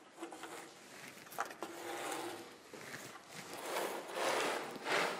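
Thin steel cable rubbing and scraping as it is pulled by hand through small plastic guide tubes in the PVC-foam wing ribs, with a couple of small clicks about a second and a half in and louder rubbing near the end.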